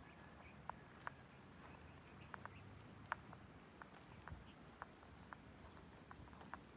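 Faint outdoor ambience: a steady high-pitched drone of crickets, with irregular soft clicks about twice a second.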